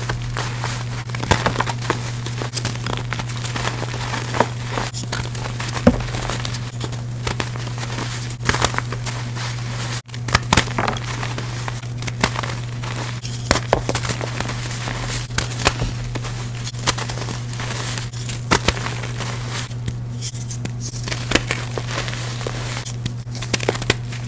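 Hands squeezing and crumbling purple-dyed reformed gym chalk blocks into powder: a continuous run of crisp crunches and crackles, over a steady low hum.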